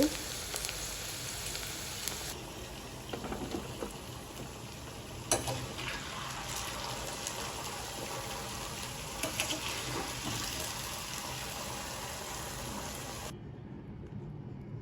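Hash brown potato mixture frying in a pan, a steady sizzle with a few knocks of a utensil, the loudest about five seconds in. The sizzle cuts off suddenly about 13 seconds in.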